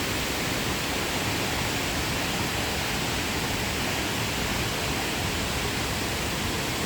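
Steady rushing of river water at a small waterfall.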